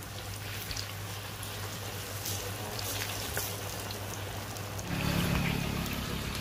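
Batter-coated chicken pakoras frying in hot oil in a large iron kadai: a steady sizzling hiss with scattered crackles. A low rumble joins about five seconds in.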